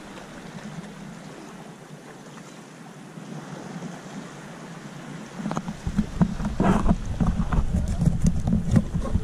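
Wind buffeting the microphone over shallow sea water, with water sloshing and splashing close by. The buffeting and splashing get louder and more uneven about halfway through.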